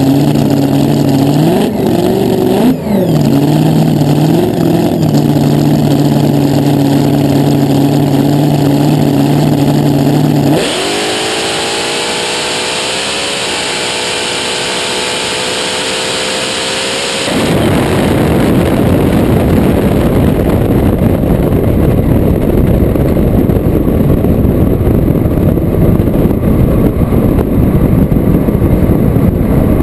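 Supercharged V8 of a front-engine dragster idling with a few quick throttle blips, then going to full throttle about a third of the way in, its pitch climbing for about three seconds and then holding. About seven seconds later the engine cuts out abruptly, switched off by the magneto switch as the chute is pulled, leaving a steady rush of wind and tyre noise as the car coasts.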